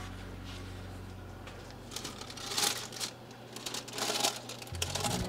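Lid of a hot bread cloche being lifted off its base in an open oven with a pot holder: brief clattering scrapes and rustles about two seconds in and again about four seconds in, over a steady low hum that drops away about three seconds in. This is the uncovering of the loaf partway through the bake.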